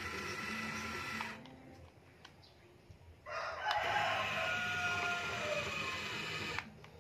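A rooster crowing once, a long drawn-out call starting about three seconds in and ending shortly before the end, its last note sagging slightly in pitch.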